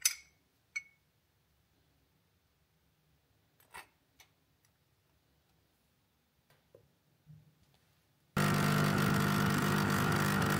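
A few faint clinks and taps of a jam jar and knife. Then, about eight seconds in, a capsule coffee machine's pump starts and runs steadily and loudly while it dispenses coffee into a glass.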